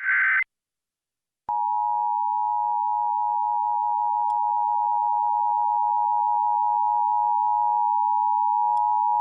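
Emergency Alert System broadcast: the last of the screechy digital SAME header bursts ends right at the start. After about a second of silence, the EAS two-tone attention signal begins and holds as one steady, harsh alarm tone.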